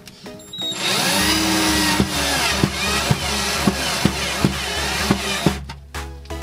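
Cordless drill driving a screw on a concealed cup hinge's mounting plate, its motor running for about five seconds before stopping. Background music with a steady beat runs underneath.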